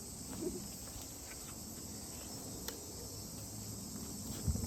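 Steady, high-pitched insect chorus of crickets or similar insects, heard faintly over quiet outdoor background.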